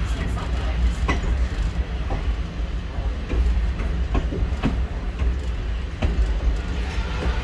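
Train rolling slowly along the track: a steady low rumble with a few sharp clicks from the wheels on the rails.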